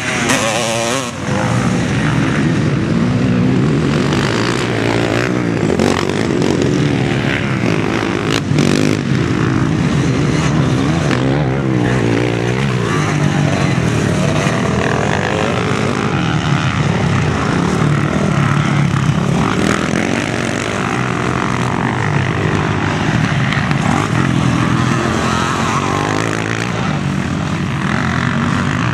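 Motocross bike engines revving hard, their pitch rising and falling as the riders accelerate, shift and back off around the dirt track, with more than one bike running at once.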